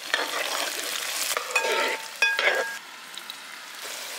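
Shallots, garlic, curry leaves and round dried red chillies sizzling in hot oil in a metal pot, stirred with a steel ladle that scrapes and rings against the pot. The stirring stops about three seconds in, leaving a quieter, steady sizzle.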